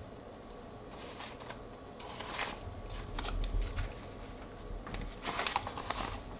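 Measuring spoon scooping granulated monk fruit erythritol sweetener out of a paper pouch, with the pouch crinkling. Several short rustles and scrapes, the clearest about two and a half seconds in and again between five and six seconds in.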